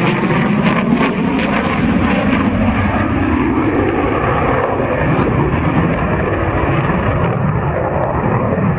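Loud, continuous roar of an aircraft engine as an airplane flies in an air show display.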